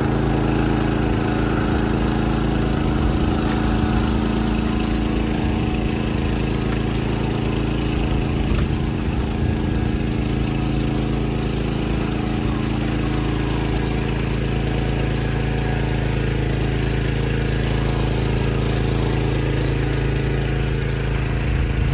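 Small engine of a monorail tea tram running steadily while carrying a rider up a steep slope.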